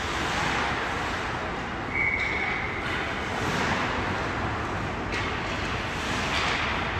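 Ice hockey rink noise during practice play: steady scraping and hiss of skates on the ice, with surges of louder scraping a few times and one brief high tone about two seconds in.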